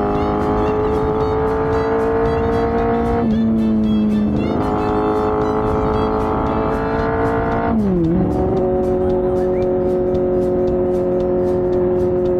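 The Honda Gorilla's swapped-in 250cc four-cylinder four-stroke engine running at high revs with a steady, high-pitched note. Its pitch drops briefly about three seconds in and again about eight seconds in, then picks back up.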